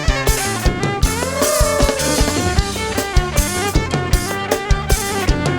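A live kantrum band playing an instrumental passage: a drum kit keeping a steady, fast beat under pitched melody instruments, one of them playing a sliding melodic line.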